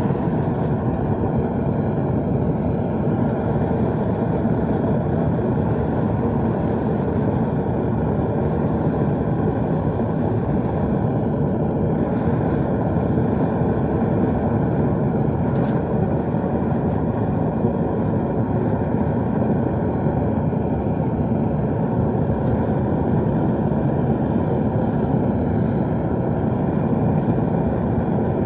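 Burner of a gas-fired metal-melting furnace running with a steady, even roar.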